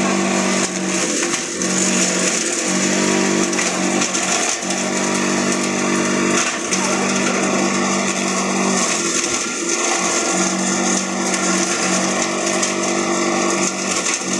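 Motor-driven chopper-grinder running and shredding green leaves and stalks: a steady machine hum over a constant hiss of cutting. The hum dips briefly every couple of seconds as bunches are fed into the hopper.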